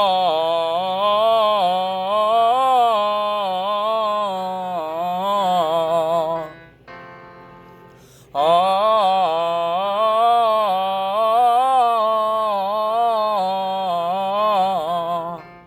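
A singer's voice holding an open 'ah' vowel through a three-tone vocal exercise, stepping up and down in pitch over and over. It comes as two long phrases, with a short pause for breath about halfway through.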